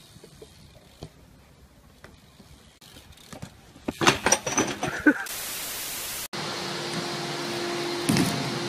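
A BMX bike and rider hitting concrete: a cluster of sharp clattering knocks about four seconds in, then about a second of loud hiss. After that, a steady hiss with a low hum, and one thump near the end.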